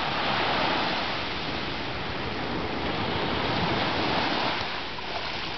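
Small ocean waves breaking and washing up at the shoreline, a steady rush that swells about half a second in and again around four seconds.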